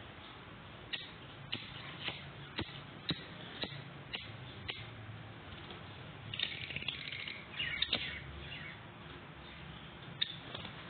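Birds: a series of sharp clicks about twice a second, then two short bursts of chirping about six and eight seconds in, and a last click near the end.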